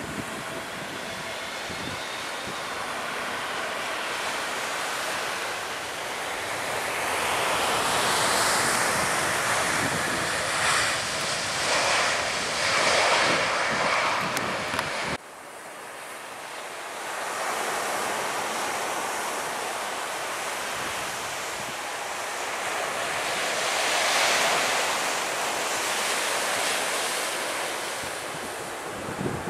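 Jet airliner engine noise as an AirAsia Airbus A320-family jet lands and rolls out, swelling to its loudest in the middle of the first half. It cuts off abruptly about halfway through, and a Boeing 737 MAX on approach takes over, its engine noise swelling to a peak and then easing off, with some wind on the microphone.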